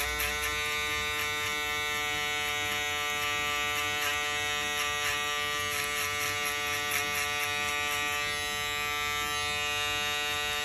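Cordless electric foil shaver running against the skin, shaving down the bottom of a taper fade. It makes a steady, even buzz.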